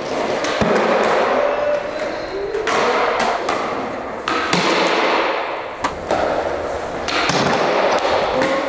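Skateboard wheels rolling on a bare concrete floor, broken by several sharp clacks and thuds as boards hit a low wooden ledge and land.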